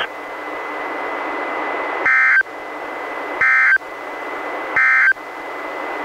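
NOAA Weather Radio SAME end-of-message code: three short, loud data bursts of warbling two-tone digital signal, about a second apart, over steady radio hiss, played through a Reecom R-1630 weather radio. The bursts mark the end of the warning message.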